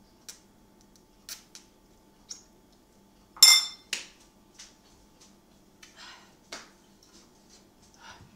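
A metal fork clattering into a ceramic bowl, one sharp ringing clink about three and a half seconds in, among a few small clicks and rustles.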